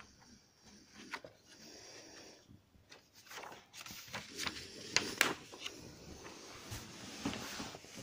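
Pages of a large book being turned by hand: paper rustling and flapping, with two sharp crackles close together about five seconds in.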